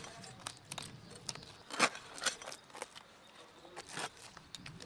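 Knife scraping scales off fresh rohu and kalbasu fish and cutting them: irregular short scrapes and clicks.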